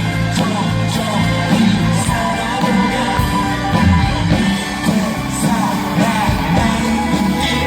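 Live pop-rock band playing with electric guitar, a steady beat and singing, heard loud through a concert PA.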